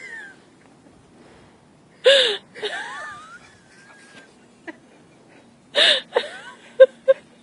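Dogs vocalizing in play: two sharp barks, each followed by sliding whines, and two short yips near the end.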